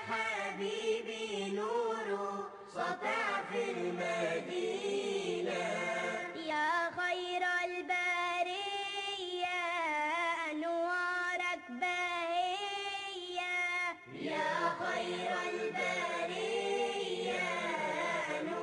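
Background vocal chanting: a voice holds long, wavering notes with no instruments, pausing briefly about fourteen seconds in.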